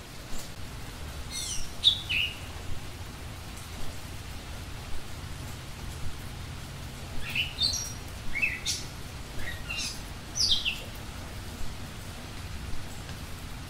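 Small bird chirping: a few quick downward-sweeping chirps about two seconds in, and a run of them from about seven to eleven seconds, over a steady low background hiss.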